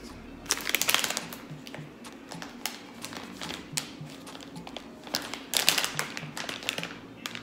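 A plastic snack bag being opened by hand: crinkling and rustling with sharp clicks. It is loudest in bursts about half a second in and again around six seconds. Quiet background music plays underneath.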